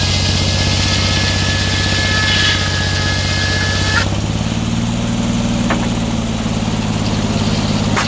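Sawmill's engine running steadily while the saw blade cuts through a log with a high hiss and whine. The cutting stops abruptly about halfway through, leaving the engine running, and there is a sharp click near the end.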